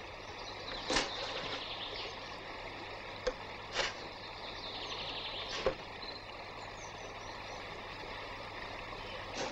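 Wooden case being handled and opened: a few short wooden knocks and some scraping, over a faint steady hum.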